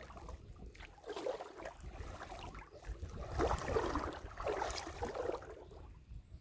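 Shallow water splashing and sloshing in uneven patches, loudest a little past the middle.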